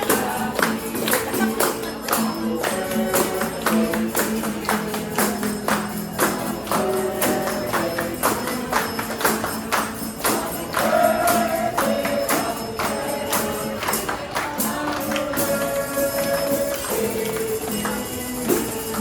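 Background music with a steady beat, tambourine-like percussion and a melody.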